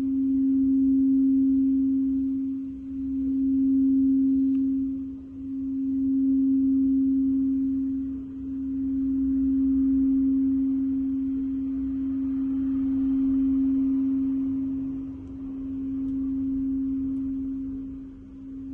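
Quartz crystal singing bowl sustained by rubbing its rim, giving one steady, nearly pure low tone that swells and fades about every three seconds.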